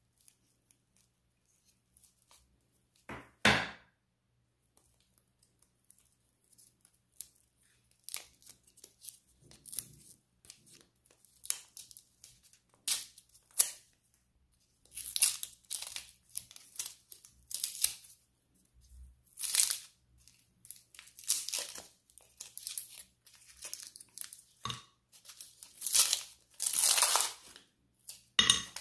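Paper sweet wrappers of strawberry Chewits being torn open and crinkled by hand. The sound comes in short bursts of tearing and rustling: one loud burst about three seconds in, then steadier handling that grows busier and louder in the second half.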